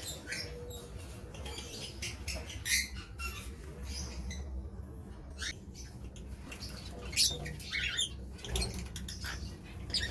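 Lovebirds making short, high-pitched squeaks and chirps at irregular intervals, over a low steady hum.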